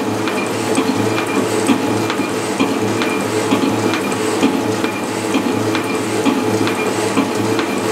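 Mars Hercules flat-belt-drive lathe running and cutting metal as the tool is hand-fed into the work, with a steady scraping cutting noise and a regular knock about twice a second.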